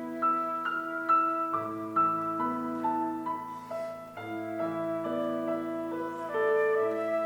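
Slow instrumental music of sustained, overlapping held notes forming chords that shift about every second, with a low bass note under higher lines.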